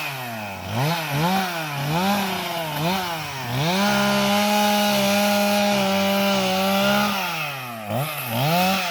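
Gas chainsaw revved up and down about every 0.7 s, then held at a steady high speed for about three and a half seconds while cutting through a limb. Near the end it drops and revs up and down again.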